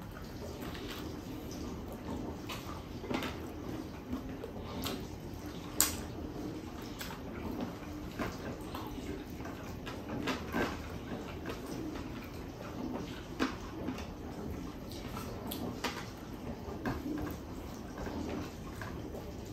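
A person eating with his hands: wet chewing and lip smacks, irregular and close up, with a sharp click about six seconds in.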